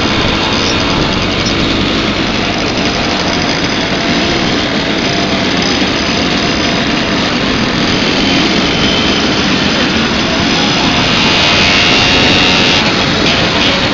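Many Simson two-stroke mopeds and scooters riding together in a convoy, a dense buzz of small engines that grows a little louder near the end.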